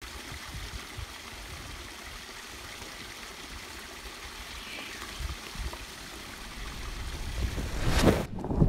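Outdoor wind noise: a steady hiss with irregular low rumbles of wind buffeting the microphone. It swells into a loud rushing near the end.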